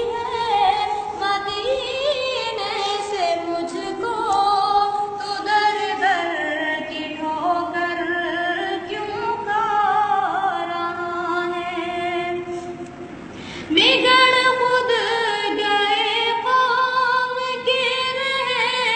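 Naat-e-Pak, an Urdu devotional song praising the Prophet, sung by a single high voice in long, ornamented lines. About 13 seconds in the voice briefly fades, then starts a new, louder phrase.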